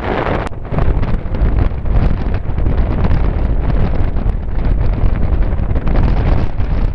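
Wind buffeting the microphone of a camera held out of an open window of a moving passenger train, over the train's running noise. About a second in, a heavy low wind rumble comes in and stays.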